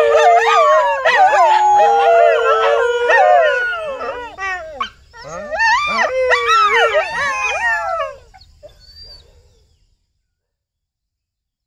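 A pack of desi dogs howling together, several overlapping howls and yips at different pitches, one held low howl under the rest. The chorus breaks off briefly about five seconds in, starts again, and dies away after about eight seconds.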